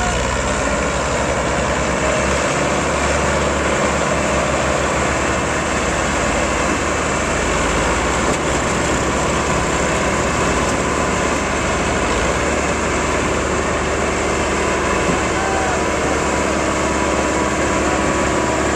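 Massey Ferguson 375 tractor's diesel engine running loud and steady under heavy load as it strains to pull a loaded low-bed trailer through sand.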